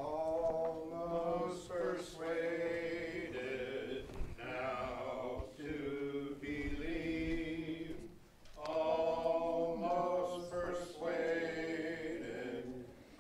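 Church congregation singing a hymn together without instruments, in long held phrases with short breaths about four and eight seconds in.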